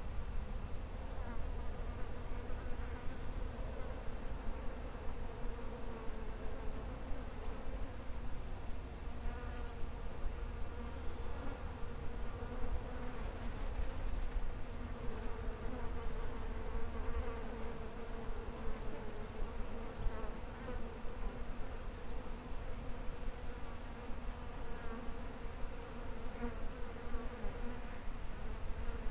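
A flying insect buzzing close to the microphone, a steady drone that wavers slightly in pitch, over a low rumble.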